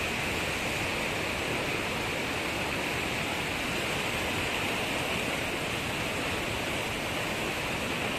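Fast-flowing river rushing over rocks and rapids: a steady, even rushing of water with no change throughout.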